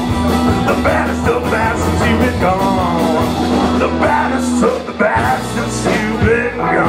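Live band playing rock and roll with a country-swing feel: strummed acoustic guitar, hollow-body electric guitar and electric bass, with a brief dip in loudness about five seconds in.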